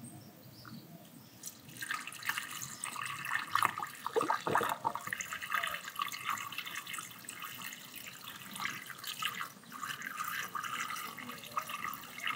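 Water poured from a plastic jug into a funnel in a car radiator's filler neck, splashing and trickling steadily, starting about a second and a half in: the cooling system being filled.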